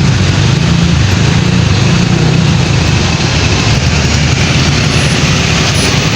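Heavy bus engine running close by, with steady road noise from passing traffic.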